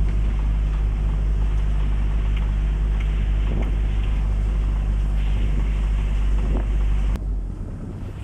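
Steady low rumble of a moving vehicle, with wind buffeting the phone's microphone. About seven seconds in the sound changes abruptly and drops a little in level.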